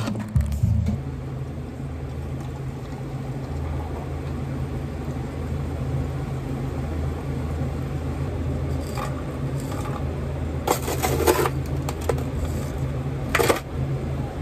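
A steady low mechanical hum, with a few short clinks of glass and ice while an iced drink is made in a stemmed glass, the loudest about 11 seconds in.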